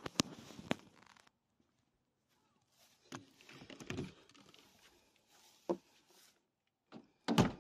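Footsteps and handling noise: scattered rustles, clicks and light knocks, with a louder thump near the end.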